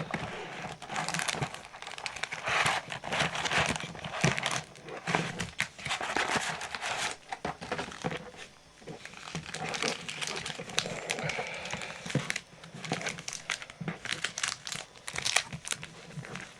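Plastic wrapping on a trading card box and its packs crinkling and tearing as they are opened by hand, with irregular crackles throughout.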